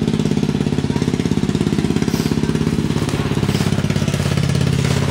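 An engine running at a steady speed, a fast, even pulsing throb.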